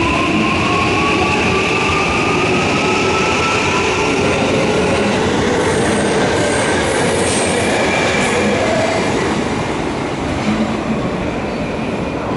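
JR West 323 series electric train pulling away from the platform, its motor whine rising steadily in pitch as it accelerates, over the noise of wheels on rail.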